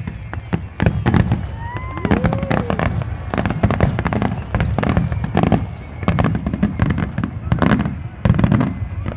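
Aerial fireworks shells bursting one after another in a dense, irregular barrage of booms and crackles. A person's voice rises and falls briefly about two seconds in.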